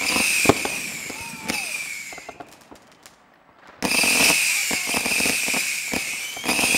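Fireworks going off: a steady high-pitched whistle over crackling and sharp bangs, in two spells with a lull of about a second and a half in the middle.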